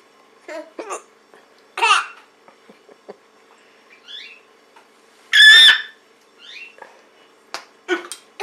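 A woman's hiccups, each short and sharp, with a baby giggling and squealing in reply. The loudest sound is a high-pitched squeal a little past the middle.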